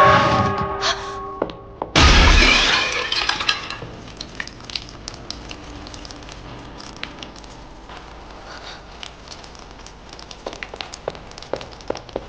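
A brass gong's ringing dies away, then about two seconds in a large glazed ceramic jar smashes with one loud crash. Faint scattered clinks follow.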